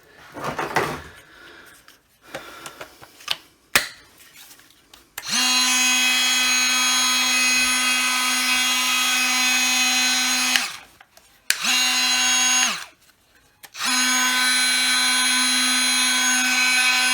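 Milwaukee M12 brushless oscillating multi-tool running with no blade fitted, switched on three times: a run of about five seconds, a short burst, then another run. Each is a steady hum with a whine that drops in pitch as it switches off. It runs normally now that its failed motor controller chip has been replaced. Before the first run there are a few handling clicks, with a sharp click about four seconds in.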